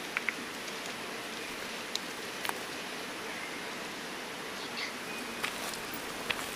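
Forest ambience: a steady even hiss, with a few brief high chirps and clicks scattered through and one short high note a little after five seconds.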